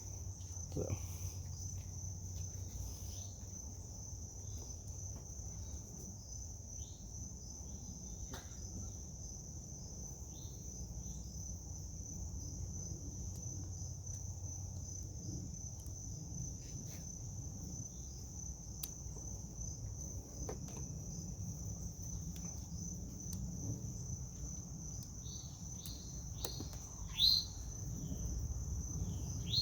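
Insects trilling steadily on one continuous high note, with a low hum underneath and scattered light clicks and chirps that come more often near the end.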